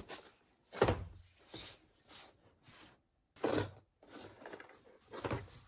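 A cardboard box being handled on a wooden tabletop: a string of knocks, scrapes and rubs, the loudest about a second in and again about three and a half seconds in.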